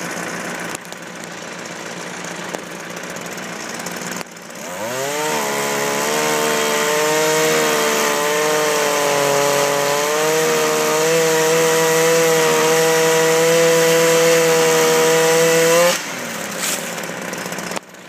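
A chainsaw revs up about four seconds in and runs at high speed for about eleven seconds, its pitch wavering slightly, before dropping back off. Before it, a tractor engine idles steadily.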